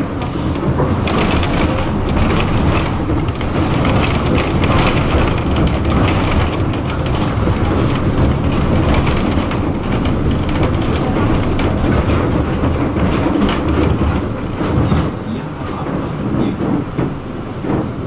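Tram running along the street, heard from inside the car: a steady low rumble from the wheels and motors on the rails, with short clicks and clatter over the track. It gets a little quieter near the end.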